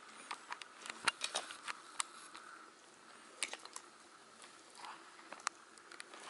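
Puppies chewing and biting a paper sign on a plastic toy car, making a scattered series of small sharp clicks, thickest about a second in.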